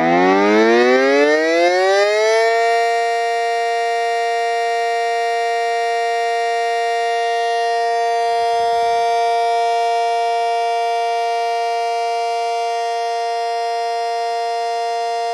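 Electric miniature rotating siren winding up, its tone rising for the first couple of seconds, then holding a loud, steady wail made of several notes at once.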